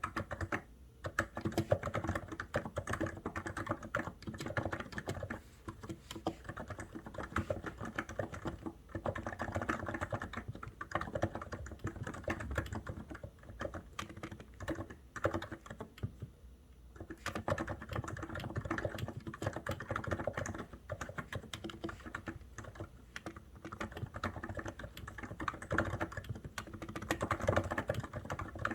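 Typing on a COX Endeavour keyboard: a steady run of rapid keystrokes, broken by short pauses, the longest about sixteen seconds in.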